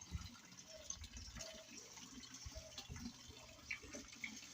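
Faint trickling, dripping water with scattered small clicks and knocks.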